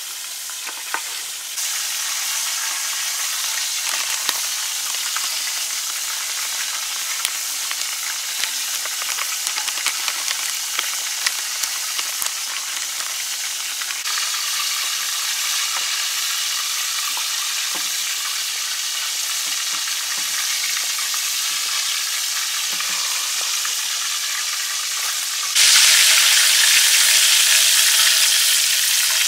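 Hot oil sizzling steadily as food deep-fries, with a few light clicks. It jumps louder and brighter near the end, as battered chicken legs fry in a wok of oil.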